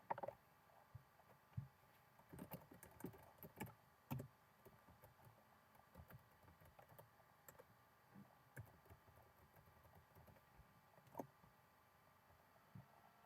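Faint typing on a computer keyboard: irregular key clicks, with a quick flurry a couple of seconds in and scattered single taps after.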